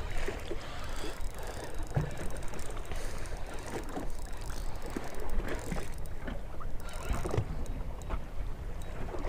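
Water lapping and sloshing against a small fishing boat's hull, with wind rumbling on the microphone and scattered small clicks and knocks.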